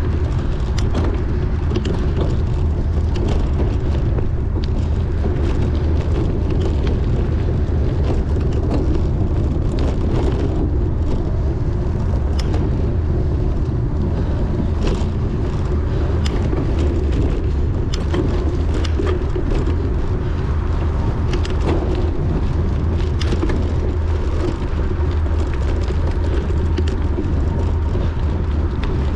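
Steady wind rushing over the microphone of a camera riding along on a cyclocross bike, with scattered clicks and rattles from the bike over bumpy ground.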